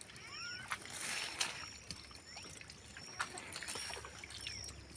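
Faint trickling water in a grassy stream bed, with a few sharp clicks and some brief high chirps near the start.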